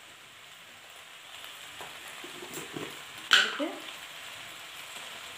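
Macaroni and tomato masala sizzling steadily in a large aluminium pan as it cooks, with one sharp metallic clink a little past halfway.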